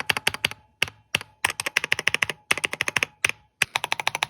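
Typing on a mechanical keyboard fitted with Akko Matcha Green linear switches: quick runs of sharp, high-pitched tappy keystrokes in bursts, with a faint metallic spring ping ringing under them.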